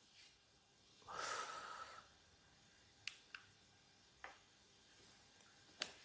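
Near silence broken by a short audible breath about a second in, then a few faint sharp clicks, the loudest just before the end.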